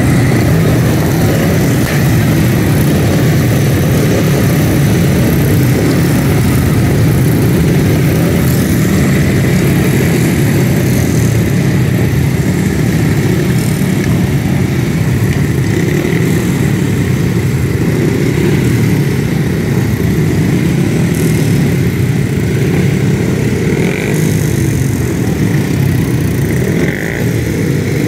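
Several speedway motorcycles' 500cc single-cylinder methanol engines running loudly together on their stands during pre-meeting warm-up, a steady, overlapping engine noise.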